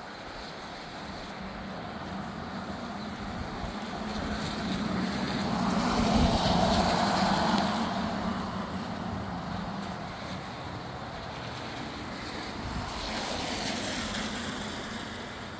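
Gusty wind from a collapsed thunderstorm rushing through palm fronds and buffeting the microphone, building to a loud gust about six seconds in and a smaller one near the end.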